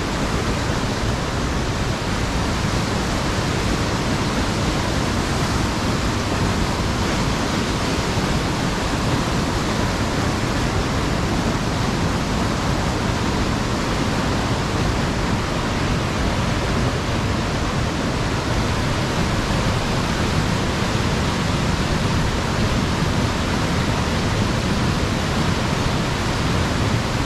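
Waterfall and the rocky cascades of the river below it, rushing steadily with no change in level.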